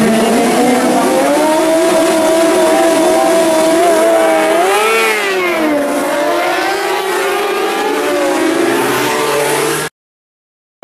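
A pack of racing motorcycles revving hard and pulling away from a race start, engine notes climbing in pitch and swooping as the bikes pass close by. The sound cuts off suddenly near the end.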